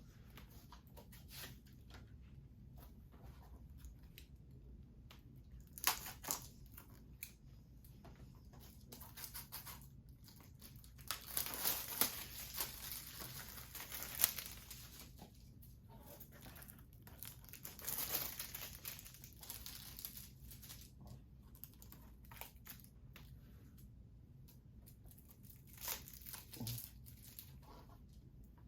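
Packaging of a 4K Blu-ray being opened by hand: plastic wrapping torn and crinkled in several separate bursts, with quieter rustling and handling between them.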